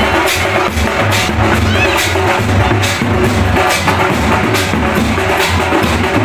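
Loud music with drums and a heavy, pulsing bass.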